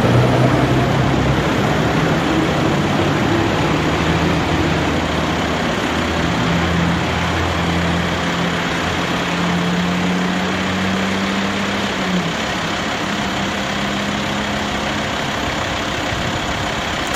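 Heavy-haulage truck's diesel engine working under load, its low note climbing slowly for about twelve seconds, dipping suddenly, then steadying again, over a steady rush of road noise.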